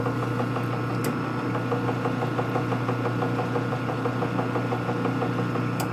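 Metal lathe running with its chuck spinning at a constant speed: a steady mechanical hum.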